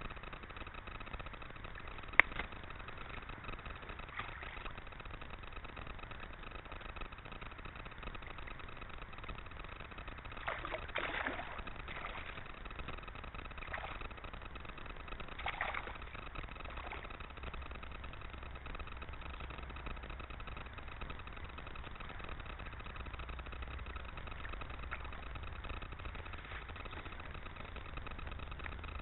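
Steady low hiss with a faint hum and low rumble, broken by a sharp click about two seconds in and a few short scuffs and splashes around the middle as a hooked trout is handled at the water's edge.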